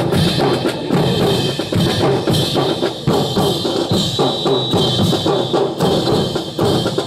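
Marching drum line of snare and bass drums playing a steady, rhythmic cadence for a rifle drill team, with sharp clacks of rifles and stamping boots mixed into the beat.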